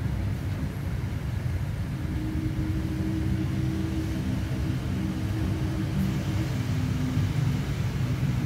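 Steady low engine rumble, with a humming tone joining about two seconds in.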